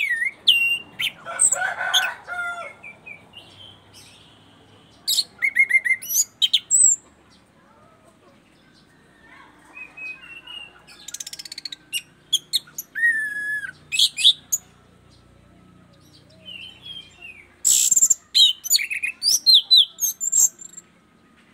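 Caged orange-banded thrush (anis cendana, called punglor) singing in several bursts of varied high whistles and quick chattering notes, with short pauses between phrases.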